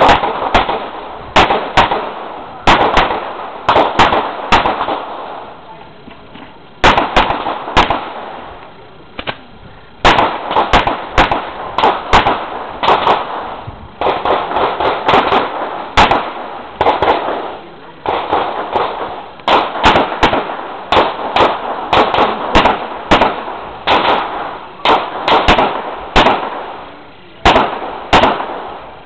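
Rapid gunshots fired in quick pairs and strings, dozens in all, each with a ringing echo, broken by short pauses of a second or two between strings. This is typical of a practical-shooting course of fire.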